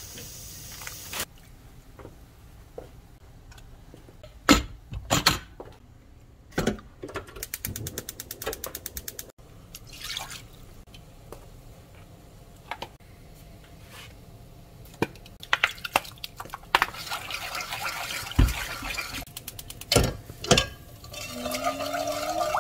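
Kitchen work at a saucepan: water and dry granules going into the pan, with several sharp knocks of the pan and utensils and a quick run of clicks partway through. Near the end a wooden spoon stirs the liquid in the saucepan.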